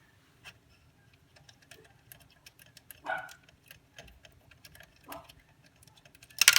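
Hands working on a pachislot machine: many small irregular clicks and ticks of hardware being handled, with louder knocks about three and five seconds in and a sharp clatter near the end.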